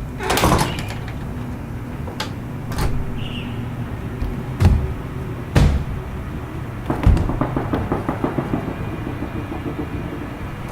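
A series of separate thumps and knocks, then a quick rattling run of taps lasting about two seconds, over a steady low hum.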